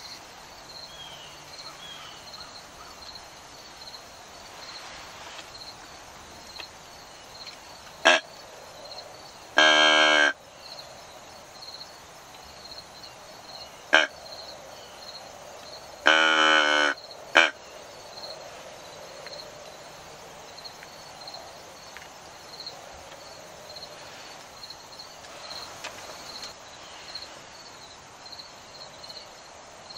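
Mouth-blown deer call tube sounded twice, two short calls of under a second each about six seconds apart, with a few sharp clicks before and between them. Insects chirp steadily behind.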